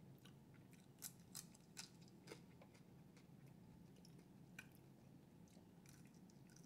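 Faint chewing of fried red snapper, with a few short sharp crunches and mouth clicks, most in the first couple of seconds and one more past halfway.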